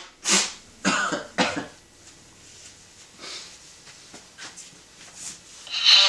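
Recorded coughing from a novelty talking tissue box: three coughs in quick succession in the first second and a half, then a few fainter coughs or breaths.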